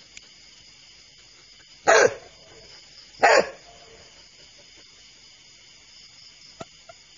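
Two short barks about a second and a half apart, over a steady high chirring of night insects.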